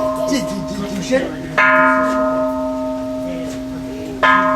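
Japanese temple bell (kansho) struck twice, about a second and a half in and again near the end, each stroke ringing out in long steady tones over the lingering hum of the strokes before.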